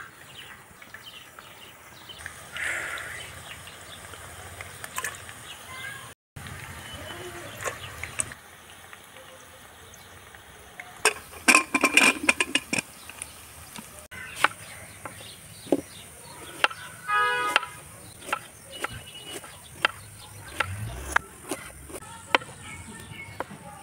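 Metal clatter and clicks from an aluminium pressure cooker as its lid is handled and closed. Near the end comes light tapping of a knife slicing onion on a wooden chopping board.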